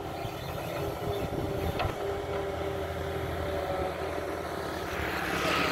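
Doosan wheeled excavator's diesel engine running steadily under work, with a steady whine over the hum, as the boom swings the empty bucket back down to the soil pile. A single short click about two seconds in, and a hiss that swells near the end.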